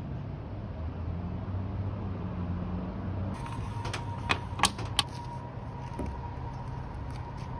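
Handling noise as a cable and portable solar panel are fitted at a camper's cab: four sharp clicks a little past the middle, over a steady low hum.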